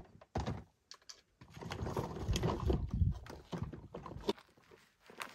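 Camping gear being handled and set down: a sharp click, a short thump, then a few seconds of clattering and rustling with many small clicks as a hard plastic cooler and other gear are moved about.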